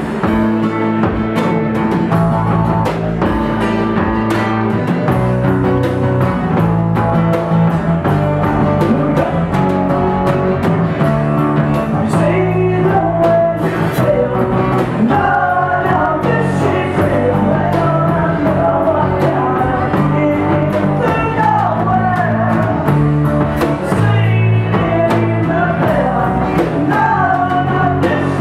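Live pop-punk band playing acoustic guitar and drums. The first part is instrumental, with chords and drum hits, and singing comes in about halfway through.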